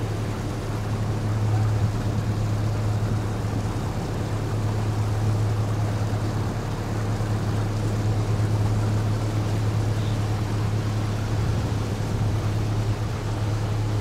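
Boat engine running steadily under way, a constant low hum, with an even rush of water and wind.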